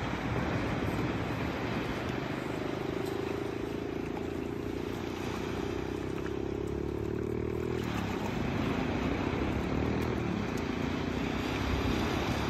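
A steady mechanical whir with a buzzing pitch that slowly rises, drops about eight seconds in, then climbs again.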